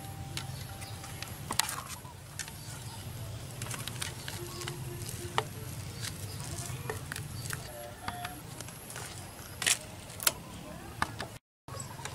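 Scattered light clicks and taps of cable ties being pulled tight around a drinks can on a motorcycle muffler, over a steady low hum.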